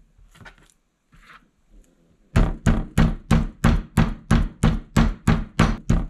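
Meat mallet pounding raw grouse breasts flat on a plastic cutting board to tenderize them: a steady run of knocks, about three a second, starting a couple of seconds in after some faint handling of the meat.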